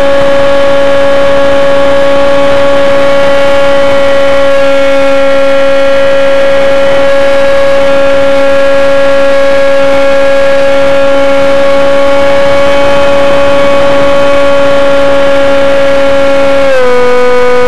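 Slow Flyer 1400 RC plane's motor and propeller running steadily under power, a loud, even whine heard up close from the onboard camera. The pitch drops a little near the end as the throttle eases.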